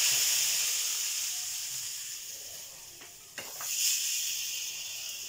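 A hot tadka of asafoetida (hing) with green and red chillies sizzles as it is poured from a small tempering pan onto sarson ka saag. The hiss is loudest at the start and dies away, then flares up again briefly about three and a half seconds in.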